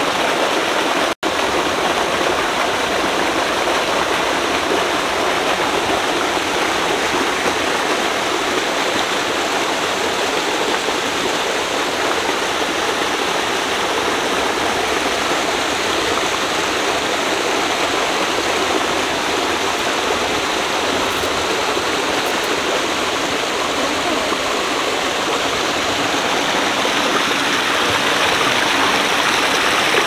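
Clear mountain stream rushing steadily over rocks and spilling down a small cascade between boulders. There is a split-second dropout about a second in.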